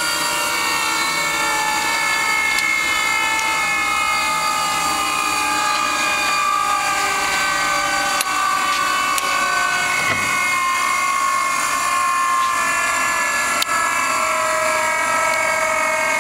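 High-speed water-cooled spindle of a stone-engraving CNC router running without cutting: a steady high whine of several tones that drift slowly in pitch. Two light clicks come about eight and thirteen and a half seconds in.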